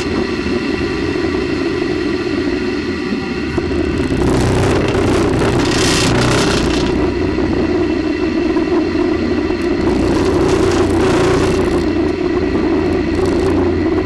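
Steady loud roar and rush picked up by the onboard camera of a Space Shuttle solid rocket booster in flight, with a constant hum of steady tones under it. It swells louder twice, about four seconds in and again near ten seconds.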